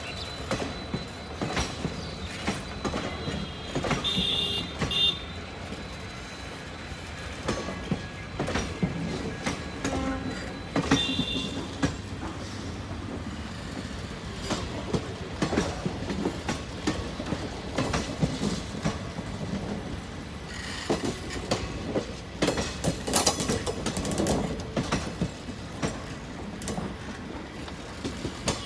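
Indian Railways passenger coaches of an express train rolling past as it pulls out of the station, with wheels clattering and clicking over the rail joints. Brief high wheel squeals come about four and eleven seconds in.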